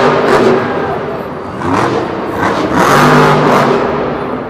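Monster truck's supercharged V8 revving hard in surges. It swells at the start, dips, then climbs again in pitch to a second peak about three seconds in before easing off.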